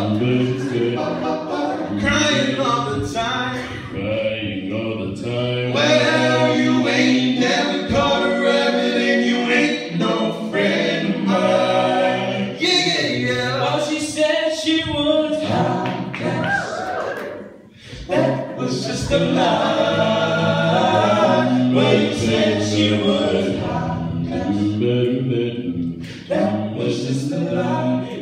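Small group of male voices singing a cappella in harmony, with a steady low sung bass part underneath. The singing breaks off briefly about seventeen seconds in, then carries on.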